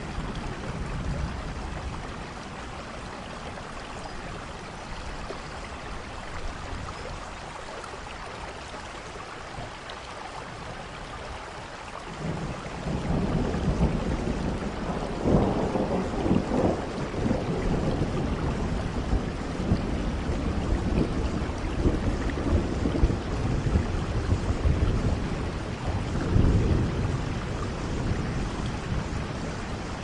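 Steady rain falling, with thunder rumbling in from about twelve seconds in and swelling to its loudest just past halfway and again near the end.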